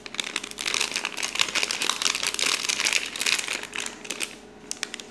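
Packet of gulaman powder crinkling as it is shaken out over a glass bowl of water; the crinkling stops about four seconds in.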